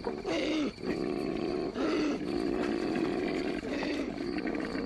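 Koala bellowing: a short rough call, a brief break, then one long steady call with a rapid rasping pulse.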